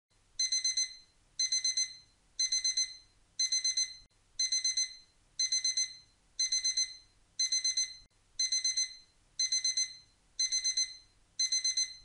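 Digital alarm-clock beeping signalling that the countdown timer has reached zero: bursts of four quick high-pitched beeps, repeating about once a second.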